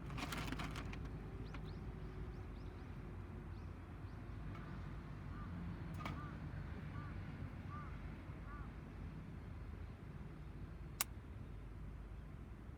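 Wood fire burning in a homemade tower-type fire stand during a burn test: a low steady rumble with a burst of crackling at the start and sharp single pops about six and eleven seconds in. A bird calls several short chirps in the background midway.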